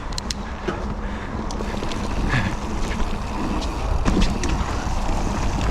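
Mountain bike ridden over a dry dirt trail: wind rumbling on the action camera's microphone, with tyre noise and scattered sharp clicks and knocks from the bike over the bumps.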